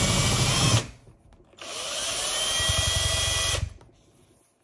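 Cordless drill boring an air hole through a thick emu eggshell. It runs for under a second, stops, then runs again for about two seconds, its pitch rising as it starts.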